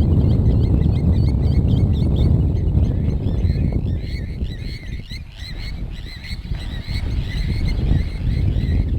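Birds chirping over and over in quick short notes, above a steady low rumble that eases off briefly around the middle.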